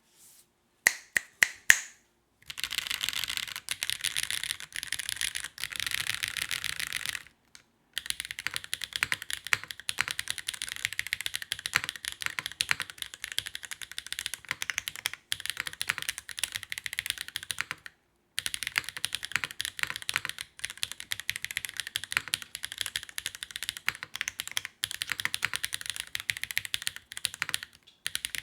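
Mechanical keyboard with factory-lubed HMX Firecracker tactile switches on a carbon plate being typed on: a few single keystrokes, then fast continuous typing in three long stretches broken by short pauses.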